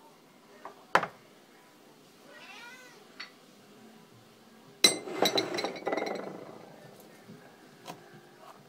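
A domestic cat gives a faint meow about two and a half seconds in, after a sharp click about a second in. About five seconds in comes the loudest sound: a sudden metallic snap with a short ring, then about a second of scraping and clinking, a can of cat food being opened.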